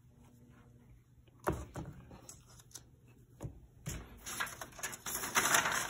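Handling noises: a sharp knock about a second and a half in and a few lighter clicks as a sublimated photo plaque is moved about on brown paper, then crinkly paper rustling over the last two seconds.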